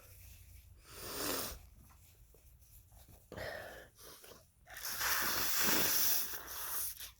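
A man with a head cold breathing noisily between sneezes: two short, breathy sounds, then a longer and louder rush of air about five seconds in.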